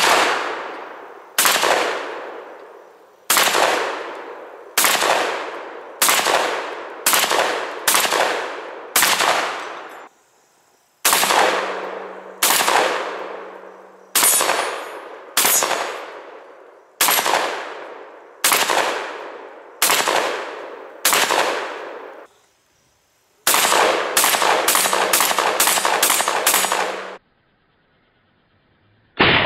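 Mossberg 930 SPX 12-gauge semi-automatic shotgun firing three strings of about eight shots each, each shot ringing out and echoing for about a second. The first two strings come roughly a shot a second; the last is rapid fire, about two shots a second.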